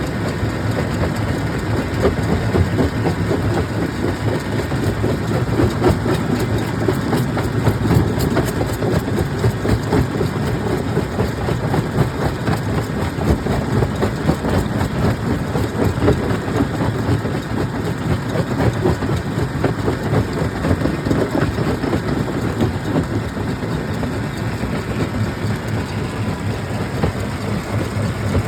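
Jaw crusher running and breaking stone: a steady heavy rumble with a dense, unbroken rattle of rock.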